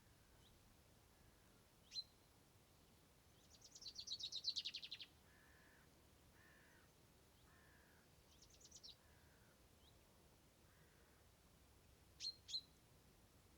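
Wild birds calling over a quiet outdoor background: a single sharp call, then a loud rapid trill of about a dozen and a half quick notes, a shorter trill, and two sharp calls near the end, with fainter lower notes repeating in between.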